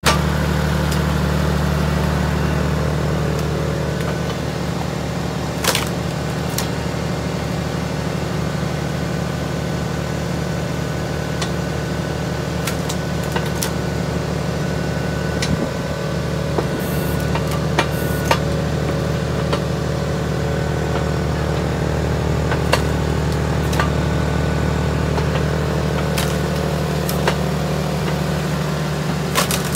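Engine of a wood-cutting machine (firewood processor) running steadily, with occasional sharp knocks and clacks.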